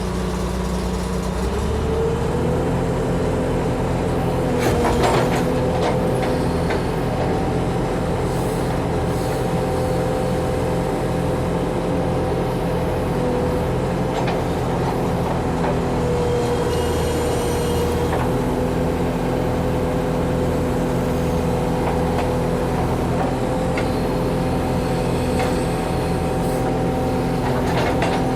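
Backhoe's diesel engine running under load at raised revs with a steady whine, the engine note stepping up about two seconds in. A few sharp knocks, around five seconds in and near the end.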